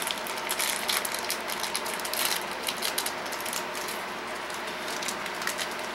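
Close-up handling noise of hand work on the wiring: a dense run of fast small clicks and rattles as wires and small plastic parts are worked by hand.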